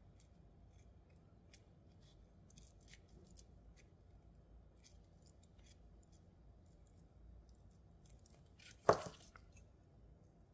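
Faint clicks of small metal jump rings being threaded and pressed closed, with one sharper click about nine seconds in.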